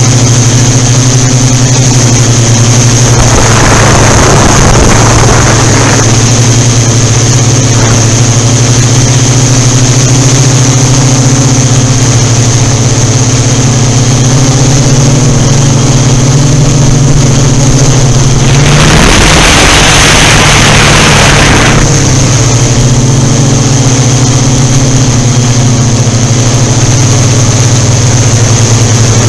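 Yuneec Typhoon Q500 4K quadcopter's electric motors and stock propellers running in flight: a loud, steady hum with a high whine above it. Wind buffets the unshielded microphone twice, about three seconds in and again near two-thirds through.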